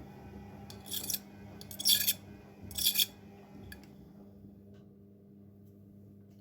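Bosch Maxx WFL 248Y washing machine running a wash cycle: three short rasping bursts about a second apart over a steady low hum, then a quieter stretch.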